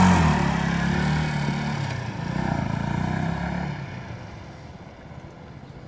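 Yamaha YZF-R125, a single-cylinder four-stroke 125 cc sport motorcycle, pulling away and accelerating off. Its engine note fades into the distance from about four seconds in.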